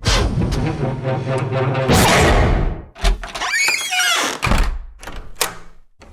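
A rapid montage of door and latch sound effects: a rolling, rattling opening, heavy thunks and slams, and a squealing hinge-like creak partway through.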